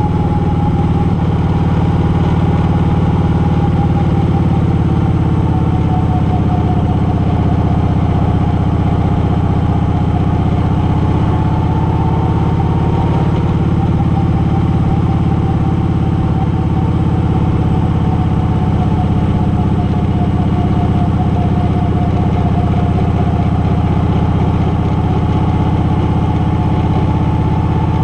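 A vehicle's engine droning steadily at cruising speed, heard from on board. A low hum is joined by a fainter higher whine that drifts slightly in pitch, along with wind and road noise.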